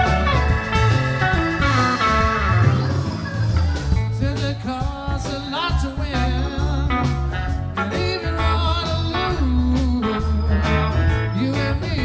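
Live rock band playing: electric guitar lines with bent, gliding notes over drums, bass guitar and keyboard.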